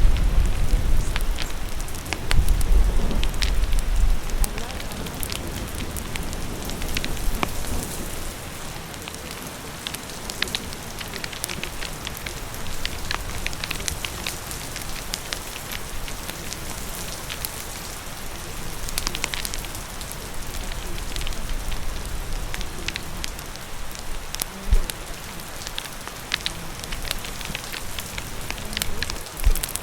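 Steady rain falling, with a wood fire crackling: frequent sharp pops and snaps scattered over the rain. A low rumble sits under it for the first few seconds, and there is a single low thump near the end.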